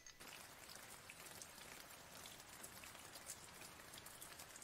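Faint, steady rain: a dense hiss of many small drops ticking.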